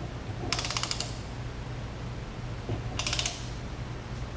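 Ratchet head of a large torque wrench clicking in two short bursts of rapid ticks as the handle is swung back between pulls, while a connecting rod nut is tightened on a crankshaft.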